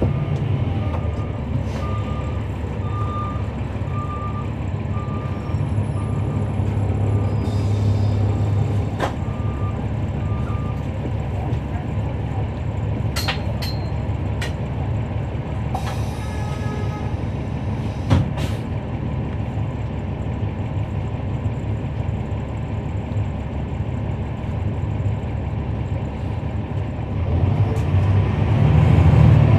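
Interior of a transit bus with its Cummins ISL9 inline-six diesel running steadily while a warning beep repeats about once every 0.7 seconds for the first ten seconds. Brief air hisses and a single thump follow, and near the end the engine grows louder as it speeds up.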